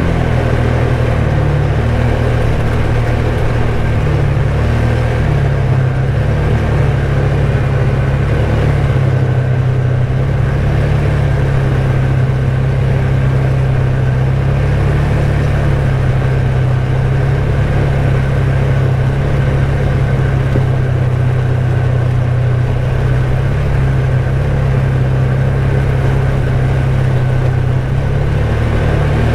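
ATV engine running steadily under way, its pitch shifting slightly a few seconds in.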